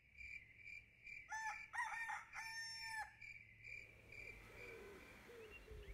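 A rooster crowing once, one long call that rises and then drops away at its end. Behind it runs a faint, steady high-pitched pulsing tone.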